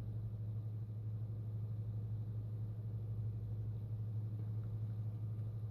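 A steady low background hum, unchanging, with no distinct clicks or handling sounds.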